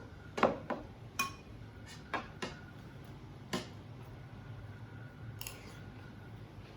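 Cutlery and serving utensils clinking against plates and bowls at a meal: several short, sharp clinks at irregular intervals, most of them in the first few seconds, then fewer and softer.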